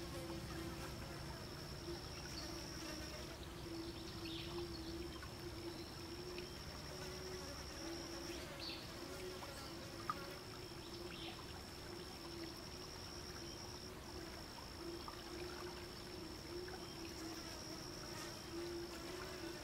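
Insects buzzing: a steady high-pitched whine that breaks off briefly a few times, over a lower wavering buzz. A single sharp click about halfway.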